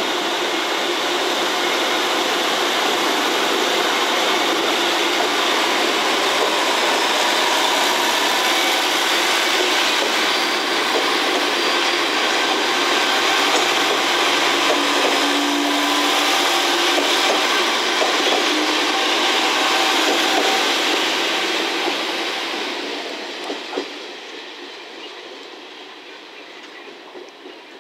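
Five-car KiHa 40-series diesel railcar train (KiHa 40 and KiHa 47 cars) running past close by, a loud steady noise of the cars and their wheels on the rails. It fades over the last few seconds as the train draws away.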